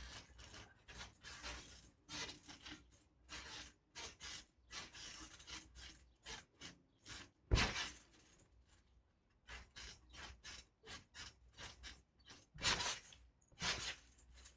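Trampoline mat and springs creaking and rubbing in quick, irregular strokes as a body moves and scuffles on it, with one sharp thump about halfway through.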